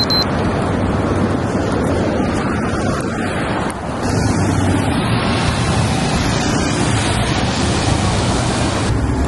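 Busy city street traffic: a steady, loud rush of passing cars and a city bus, with the low rumble getting stronger about four seconds in as the bus passes close.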